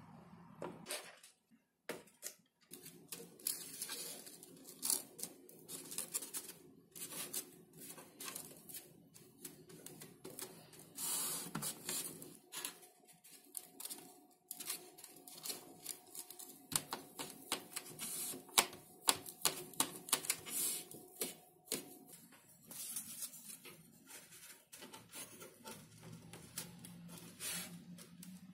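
Hands fitting XPS foam board formers and balsa strips together: irregular light clicks, taps and rubbing of the parts being handled and pressed into place.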